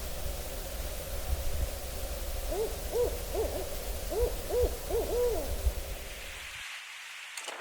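An owl hooting: a run of about eight short hoots, each rising and falling in pitch, over a low rumble that cuts off near the end.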